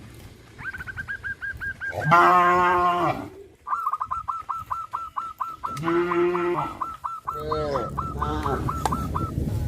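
Cows mooing: one moo about two seconds in, another near six seconds, then a few shorter falling calls. A fast string of short, high, repeated calls runs through much of the time, at about eight to ten a second.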